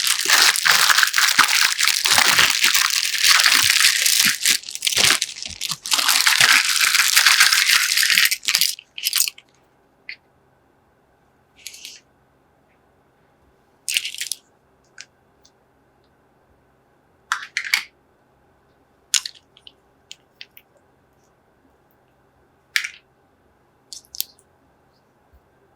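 Unboxing a miniature toy kitchen set: loud continuous crinkling and rattling of packaging for about the first nine seconds, then scattered short clicks and taps of small plastic toy pieces being handled and set down.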